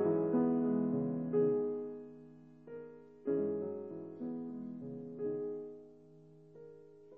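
Background piano music: slow, soft notes and chords, each struck and left to ring and fade, a new one about every second, dying away toward the end.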